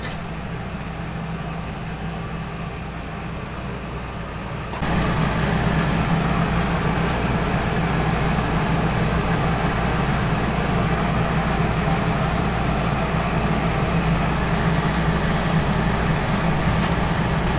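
Steady low mechanical drone of running machinery, with a constant hum under a noisy hiss. It steps up in level about five seconds in and then holds steady.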